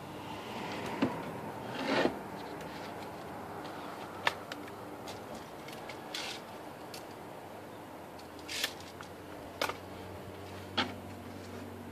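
Handling sounds of a plywood panel being shifted and positioned on a ladder: rustling and scraping, with about six short sharp knocks spread through. A steady low hum runs underneath.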